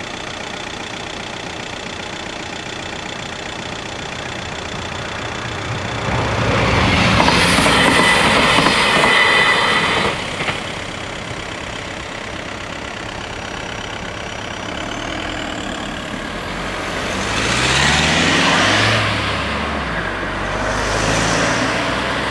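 Level-crossing warning bells ringing steadily while a LINT 41 diesel railcar passes loudly from about six to ten seconds in; the bells stop around ten seconds in. Near the end, road cars pull away and drive over the crossing with engines rising in pitch.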